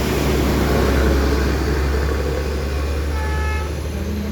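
Steady low rumble of roadside traffic and idling vehicles, with a short vehicle horn toot a little after three seconds in.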